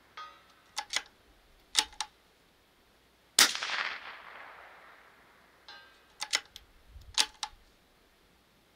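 Anschütz 1710 .22 LR bolt-action rifle: its bolt is worked with a short rattle and a few sharp clicks, then a single shot about three and a half seconds in, trailing off in an echo. The bolt is cycled again with a rattle and clicks near the end.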